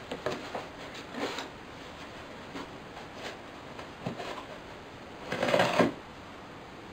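Scissors point scoring a cardboard box along its sides: a series of short scratching strokes, with a louder half-second sound about five seconds in.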